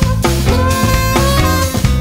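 Upbeat band music with drums, a bass line and guitar under a gliding lead melody.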